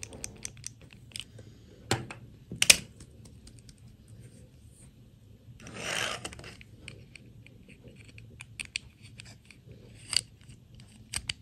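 Small plastic dolls and their stiff clip-on plastic dresses being handled: scattered light clicks and taps, with a couple of sharper snaps and a short rustling scrape about halfway through. Near the end comes a click as a dress is fitted onto a doll.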